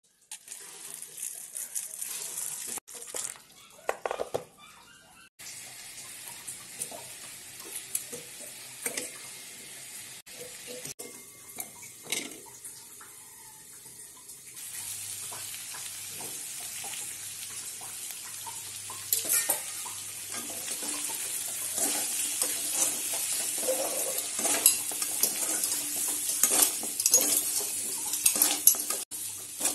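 Chicken pieces sizzling as they fry in a wok, with a metal spatula stirring and scraping against the pan in frequent clinks and scrapes. The sizzle grows louder about halfway through.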